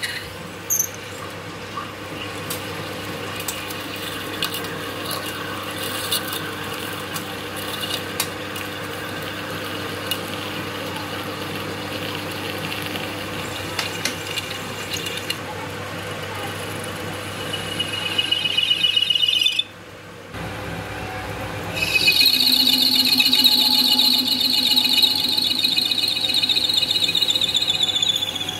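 Metal lathe running while a twist drill in the tailstock chuck bores into the spinning metal workpiece, with a steady hum and scattered clicks of chips. About 18 seconds in a whistling squeal rises from the cut; after a short break, a lathe tool cutting the spinning work gives a loud, high-pitched squeal for the last six seconds, falling in pitch just before the end.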